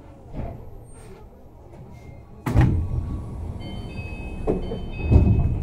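Tama Toshi Monorail 1000-series car's sliding doors working at a station: a heavy thud about two and a half seconds in, then a high chime of a few steady tones, and another heavy thud near the end.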